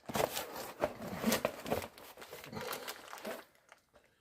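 Packaging crinkling and tearing in a run of irregular short crackles as a new steering damper is unwrapped. It dies away about three and a half seconds in.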